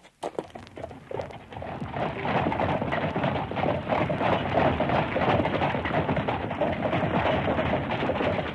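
A dense, rapid clattering sound effect on the soundtrack, starting with a few sharp clicks out of near silence and building up over about two seconds into a steady, continuous clatter.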